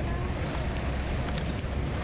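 Small boat's motor running steadily, with wind blowing on the microphone and a few faint clicks.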